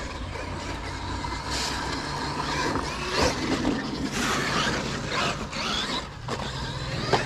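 Traxxas Maxx 4S radio-controlled monster truck driving across turf, its brushless motor whining up and down in pitch as it speeds up and slows, over tyre noise, with a sharp knock near the end.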